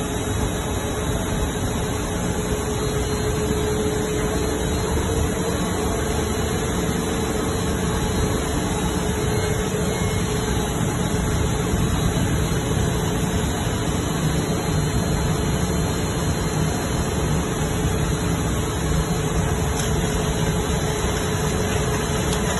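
Compact single-shaft plastic shredder running steadily as it shreds woven polypropylene bags: a constant mid-pitched whine over a dense, even noise.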